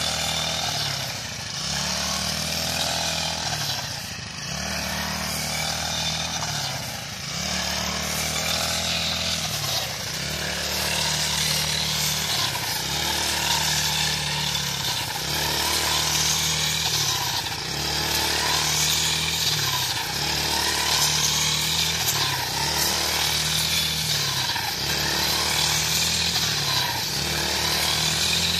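Petrol brush cutter fitted with a fodder-gathering rake, running fast while it mows green fodder. Its engine note dips and recovers every second or two as each swing bites into the crop.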